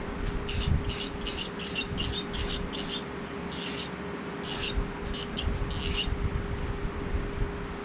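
Aerosol can of clear coat sprayed in short hissing bursts, about a dozen, quick at first and then more spaced out, over a steady low hum.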